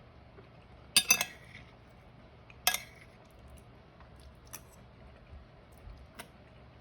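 Cutlery clinking against a dish while eating: a quick double clink about a second in, a single clink a couple of seconds later, then a few faint ticks.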